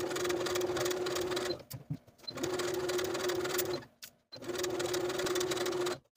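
Electric sewing machine stitching at a steady speed in three runs of about a second and a half each, with short pauses between, as it edge-stitches a folded sleeve hem.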